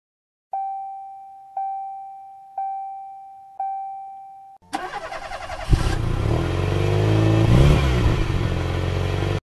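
Four short pitched beeps about a second apart, each fading away. Then, about halfway through, a monster-truck engine sound effect starts up and revs, with the pitch rising and falling near the end.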